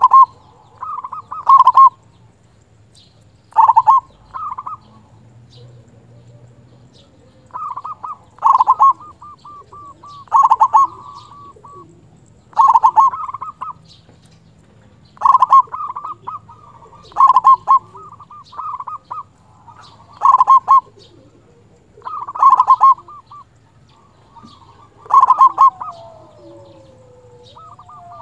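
Local-strain zebra dove (perkutut lokal) cooing: a dozen or so short phrases, each a rapid stutter of notes, about one every two seconds.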